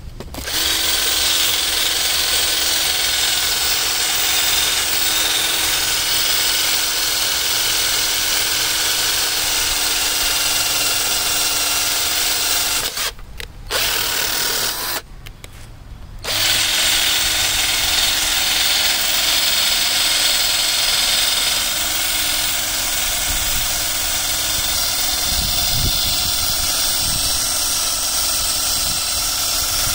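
Foster FK 38-21 21-volt cordless drill running steadily as a twist bit bores into old hard wood. The drill stops twice briefly around the middle, then runs again.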